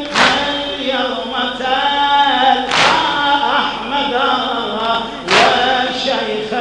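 Men chanting an Arabic mourning chant (latmiya) in long melodic held lines through a microphone, with a sharp slap-like beat about every two and a half seconds, three times.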